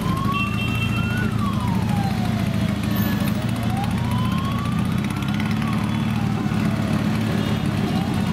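A siren wailing, its pitch slowly rising and then falling about every four seconds, twice through and starting a third rise near the end. Under it the trike's engine runs steadily.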